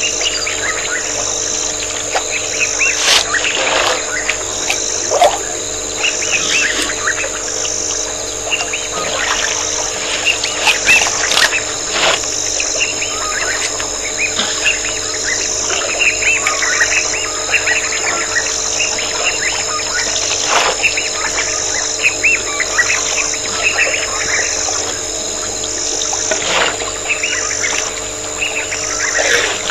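Wild birds chirping in many short, scattered calls over a steady, high-pitched insect drone that pulses at an even rate.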